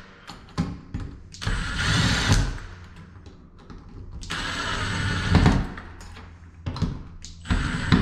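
Cordless drill driving in the two screws that hold a door knob set together, in two runs of about a second each, around two and five seconds in, with short blips of the trigger between them.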